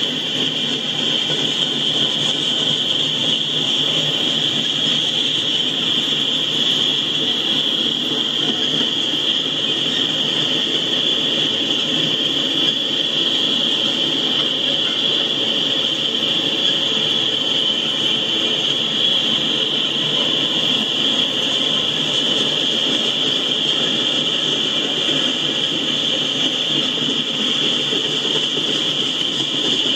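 A freight train's cars, covered hoppers and tank cars, rolling steadily past, with a continuous high whine riding over the rolling noise; heard through the live train cam's playback speaker.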